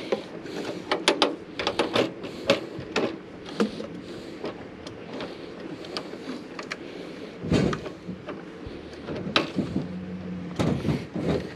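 Irregular clicks, taps and knocks of tools and hardware being handled, with a few sharper knocks scattered through.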